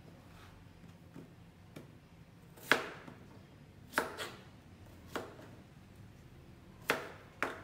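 Knife cutting cucumber on a plastic cutting board: separate sharp knocks of the blade on the board, irregularly spaced, a couple of faint ones first and about five louder ones from nearly three seconds in.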